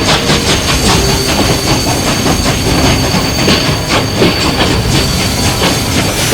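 Train running along the track: a rapid rhythmic clatter of wheels over rail joints, with a steady high-pitched wheel squeal over it.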